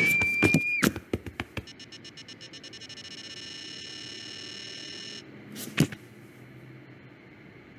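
Cartoon sound effects: a held electronic beep that cuts off with a run of sharp clicks, then a fast, quickening electronic buzz for about three seconds that stops abruptly. A short whoosh and thud come near six seconds in.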